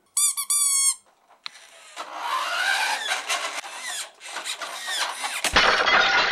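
A child's battery-powered ride-on toy car: a short high warbling electronic sound, then a whirring, engine-like sound with a rising pitch as it runs, and a louder noisy stretch near the end.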